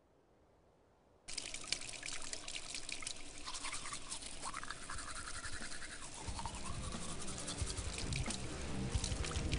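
Teeth being brushed with a toothbrush: a scratchy, rapid scrubbing that starts suddenly about a second in. Music plays beneath it, and its low notes come in about six seconds in.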